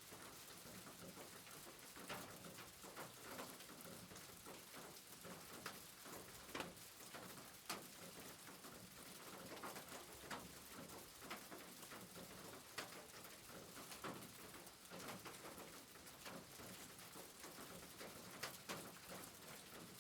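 Faint, steady rain with irregular drops tapping on a hard surface.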